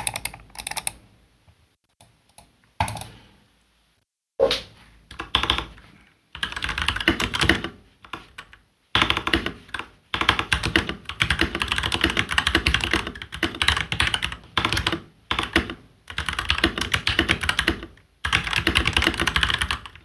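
Royal Kludge RK R87 mechanical keyboard with its stock, unmodded RK Red linear switches and factory foam, typed on fast. A few separate knocks come in the first few seconds, then rapid keystrokes run in bursts of one to two seconds with short pauses between them.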